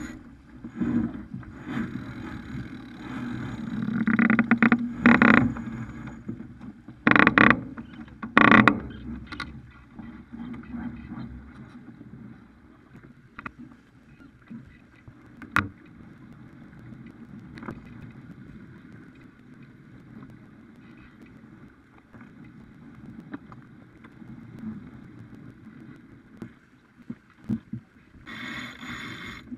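Water rushing along the hull of a Farr 280 sportsboat under sail, with several loud bursts of noise about four to nine seconds in. It then settles to a quieter steady hiss with a few sharp clicks, and grows louder again near the end.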